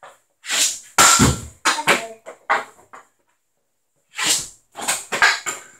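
Street hockey stick shooting pucks on a concrete floor: a string of about six separate hits and clatters, the loudest with a deep thud about a second in.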